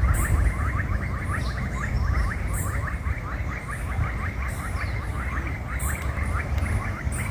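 Chorus of frogs calling continuously, many fast repeated short notes overlapping, over a steady low rumble.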